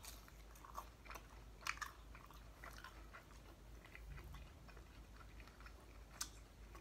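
Faint chewing of a crispy fried lumpia (Filipino spring roll), with scattered small crunches of the fried wrapper and a sharper crunch about six seconds in.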